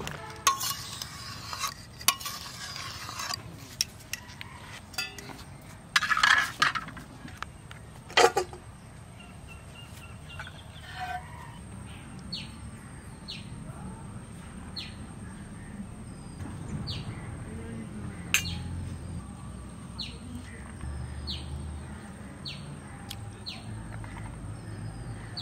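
Metal cookware clattering and clinking for the first several seconds, loudest around six seconds in with a sharp clank just after. From about halfway on, a bird calls over and over, a short falling high note roughly once a second.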